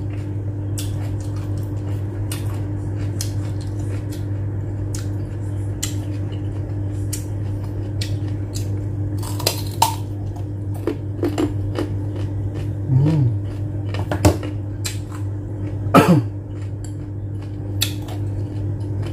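Close-up mouth sounds of a person biting and chewing a piece of carrot: many small wet clicks and crunches scattered through, over a steady low hum.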